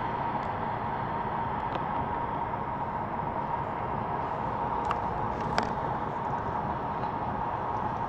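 Steady road and wind noise inside a moving car's cabin, with a constant high hum and a couple of sharp clicks about five seconds in.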